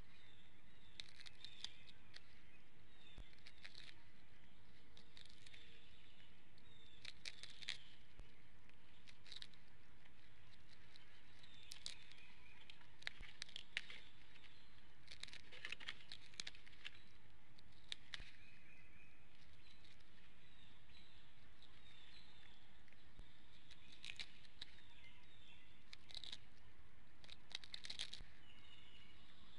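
Small birds chirping in short, scattered calls over a steady outdoor hiss, with faint patter and tearing from a juvenile bald eagle picking at fish in the nest.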